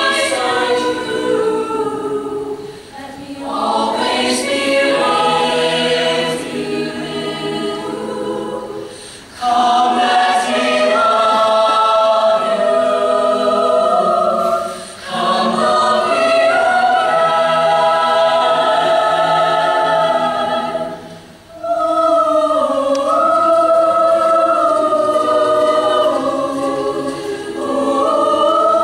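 Show choir singing in full, held chords. The phrases break off briefly four times, roughly every six seconds.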